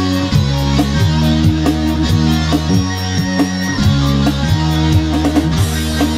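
Instrumental backing track playing: plucked guitar notes over held bass notes, with a steady beat.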